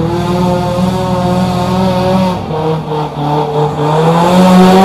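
Off-road 4x4's engine working hard under load. The low rumble changes about two seconds in, then the revs climb toward the end.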